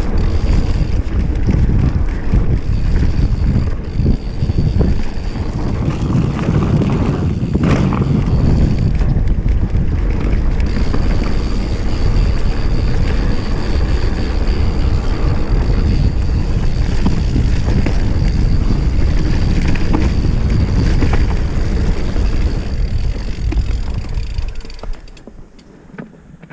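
Mountain bike riding fast down a dry, rocky dirt trail: wind buffeting the camera microphone over tyre rumble and the rattle of the bike. The noise dies away near the end as the bike stops.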